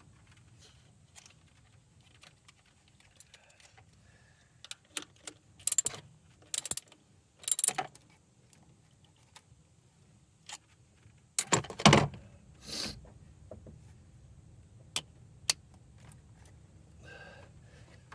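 Metal tools and parts clinking and clanking in scattered bursts, with a heavier metallic clunk about two thirds of the way through.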